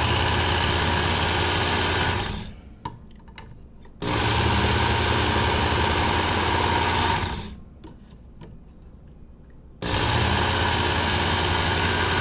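Work Sharp Ken Onion Edition belt sharpener running, its abrasive belt grinding the steel edge of a knife blade. It runs in three passes, each tapering off as the motor winds down, with a few light clicks in between.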